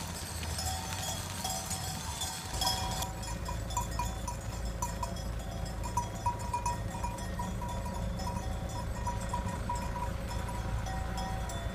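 Bells on a herded flock of sheep clinking irregularly as the animals walk, short ringing notes over and over. From about two and a half seconds in, a steady low rumble of a following car runs underneath.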